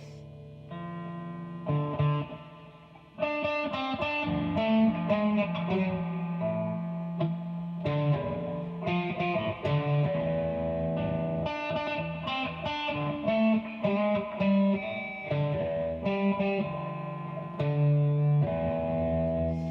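Electric guitar through a distorted tone, playing a single-note rock riff rather than power chords. After a couple of held notes it stops briefly, then the riff runs on without a break.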